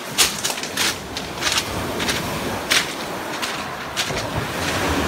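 Footsteps crunching on a pebble beach, about one step every two-thirds of a second, over the wash of surf on the shingle. The surf grows louder near the end.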